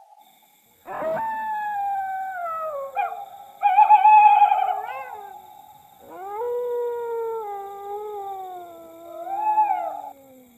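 Long, drawn-out howls, three in a row, each sliding slowly down in pitch. A shorter call that rises and falls comes near the end.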